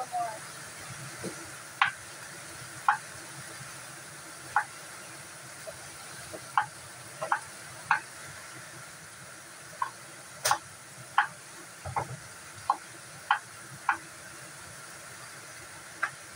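Kitchen knife cutting potatoes on a round wooden chopping board: sharp knocks of the blade meeting the board, irregular, about one a second.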